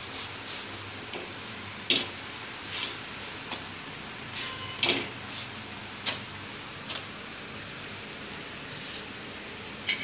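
Kitchen handling around a tava on the stove: irregular light knocks, clicks and scrapes of the pan and utensils over a steady hiss. The sharpest knock comes about two seconds in, another at the very end.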